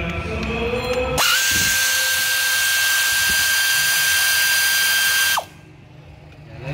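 Handheld power tool driving a bolt on a truck engine's timing gear: it spins up about a second in, runs with a steady high whine and hiss for about four seconds, then winds down and stops.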